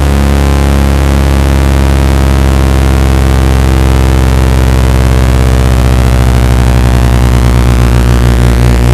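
Synthetic water-eject tone: a loud, deep, steady electronic hum stacked with many overtones, with a pulsing beat in the lower tones that grows stronger toward the end. It is a vibration signal meant to shake trapped water out of a wet speaker's grill and driver.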